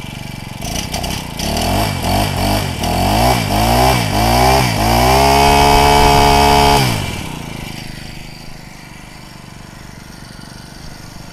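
Honda GX22 four-stroke brush cutter engine revved in a string of quick throttle blips, then held at high revs for about two seconds and let fall back to a steady idle.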